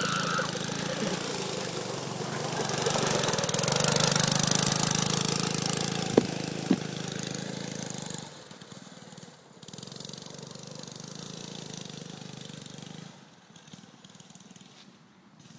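A go-kart's small engine running as it drives across a grass field. It is loudest about four seconds in, drops away after about eight seconds, and fades out near the end. Two short, sharp sounds half a second apart stand out about six seconds in.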